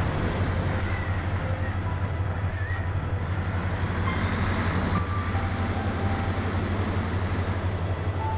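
Steady rush and low, fast-pulsing rumble of airflow and vibration on a keychain camera riding the cockpit of a Phoenix 2000 RC glider in flight.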